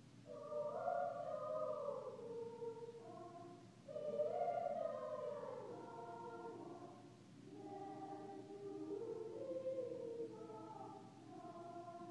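Junior high school choir singing sustained chords in several parts, in phrases that swell about half a second in and again about four seconds in, with a softer stretch around seven seconds before the voices build again.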